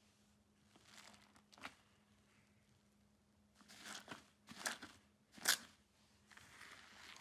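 Hand squeezing and kneading fluffy foam slime in a bowl: soft squishing with crackling, popping bursts as the slime stretches and tears. A cluster of louder pops comes from about three and a half to five and a half seconds in, the loudest near the end of that cluster.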